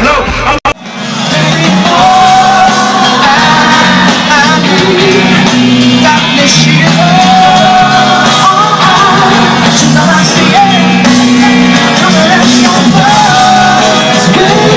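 Loud live pop music at a stadium concert with fans singing and shouting along close to a phone's microphone, after a brief dropout less than a second in.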